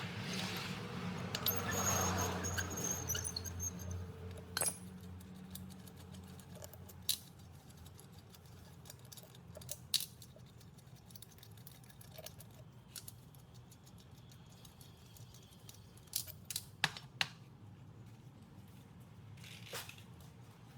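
Scattered light metallic clicks and taps of tools and parts being handled, a few seconds apart, with a cluster of them near the end. A hiss over a low hum fades away in the first few seconds.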